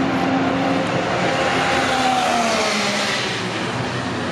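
Racing car engines running on the circuit, a steady engine drone with one engine note falling in pitch about two seconds in.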